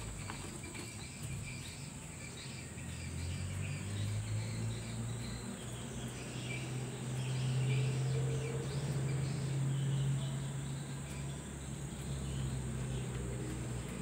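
Steady high-pitched insect chorus, with a low hum that swells in the middle and eases off near the end.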